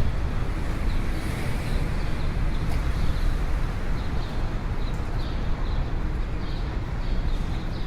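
City street ambience: a steady rumble of road traffic, with short faint high chirps recurring throughout.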